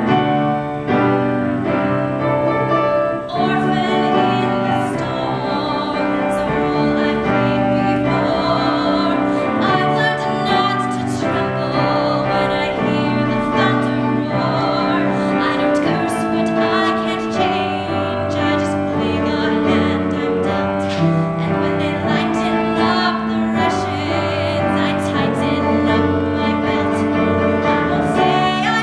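A young woman singing a solo musical-theatre ballad, with vibrato on the held notes, over instrumental accompaniment.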